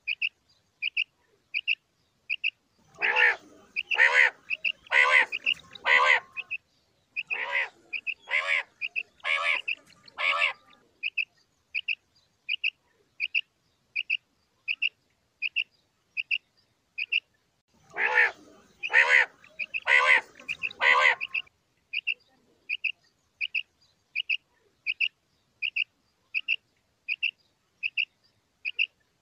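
Common quail calling: a steady run of short, high chirps at about two a second. Twice it is joined by a bout of louder, fuller calls at about one a second, the first a few seconds in and lasting about seven seconds, the second shorter, about two-thirds of the way through.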